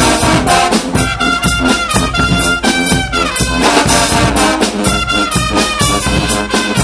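Brass band of trumpets and trombones playing loudly in unison, with a drum kit keeping a steady beat underneath.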